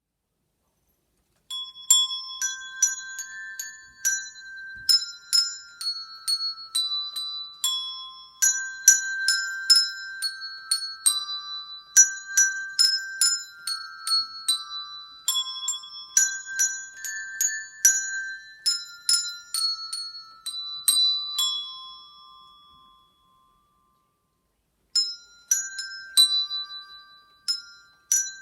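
Handbells played by a children's group, ringing out a Christmas tune one struck note at a time, each note left to ring on. The playing stops a little over twenty seconds in and starts again about two seconds later.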